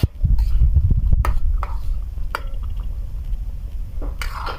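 Metal ladle stirring a thick cream sauce in a steel wok, with several sharp knocks of metal on the pan in the first two seconds and a brief scrape near the end, over a loud steady low rumble.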